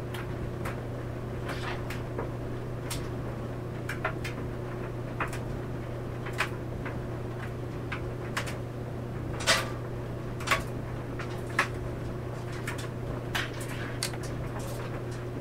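Clothes dryer running with a steady low motor hum, as laundry tumbles in the drum and knocks against it at irregular intervals about once a second, the loudest knocks about two-thirds of the way through.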